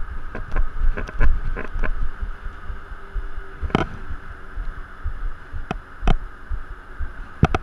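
Low thumping and rumble from a camera carried by a futsal player as he moves about, with scattered sharp knocks; the loudest knock comes about four seconds in and two more come close together near the end.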